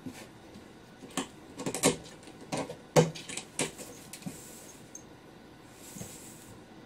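A cat scrabbling and pouncing in a cardboard box: a quick flurry of scratches, scrapes and thumps on the cardboard, the loudest about three seconds in, then only faint rustling.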